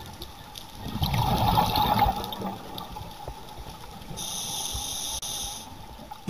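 Heard underwater, a scuba diver's exhaled air bubbles rush from the regulator in a burst about a second in. Later a high steady tone sounds for about a second and a half.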